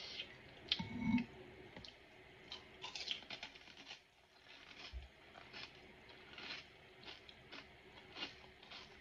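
Crisp pani puri shells being cracked and chewed: a run of short, sharp crunches with a dull thump about a second in.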